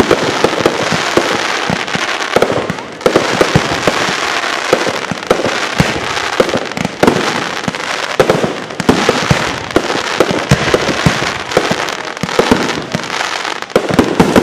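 Fireworks going off in a dense barrage: a steady crackling hiss with many sharp bangs and pops throughout, easing briefly about three seconds in.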